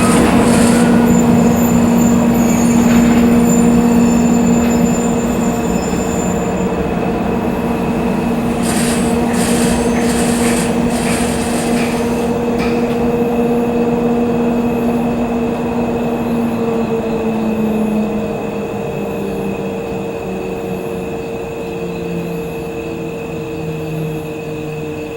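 Freight train of tank wagons hauled by two EF64 electric locomotives pulling slowly into the station with a steady squeal and hum, a few clanks near the middle; the hum drops in pitch in the last third as the train slows to a stop.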